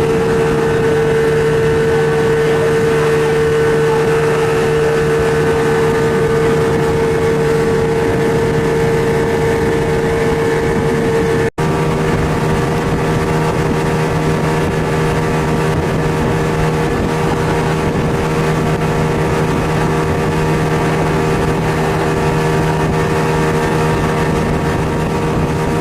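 Speedboat engine running steadily at speed, a constant pitched drone, with a split-second break about eleven seconds in after which the pitch is slightly different.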